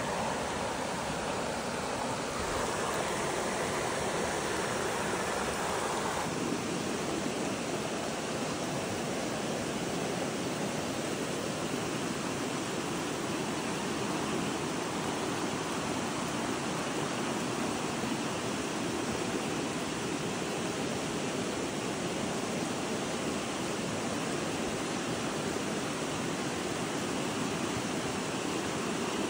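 Fast-flowing mountain stream rushing steadily; its sound turns deeper about six seconds in.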